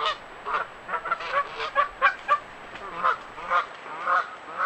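Canada geese honking in a rapid series of short calls, about three a second, spacing out slightly toward the end, during a confrontation between geese guarding a gosling.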